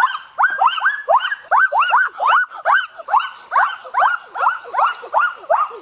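A chorus of animal calls: short, overlapping yelps that rise and fall in pitch, repeating about three or four times a second.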